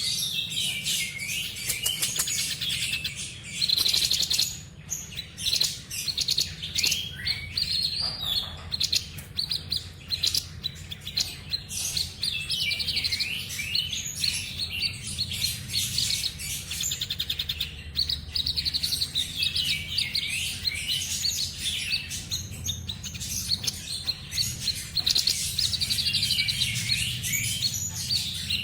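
Babbler sold as a 'sniper' bird (tepus dada putih) singing without pause: dense runs of fast chattering trills and quick up-and-down sweeping notes in repeated bursts, over a faint steady low hum.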